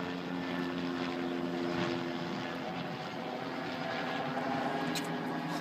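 Engine hum, most likely the car's own engine idling, with a steady pitch that shifts slightly partway through.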